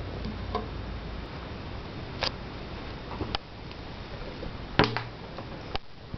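Steady static hiss from a low-quality camera's recording, broken by a handful of short clicks and ticks, the loudest about five seconds in.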